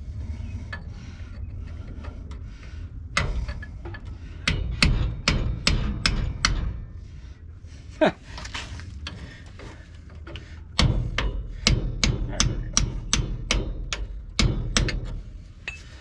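Hammer driving a chisel against a seized, drilled-out wheel fastener, cutting off the last piece of it. Sharp metal blows come in three runs of a few strikes a second, with pauses between.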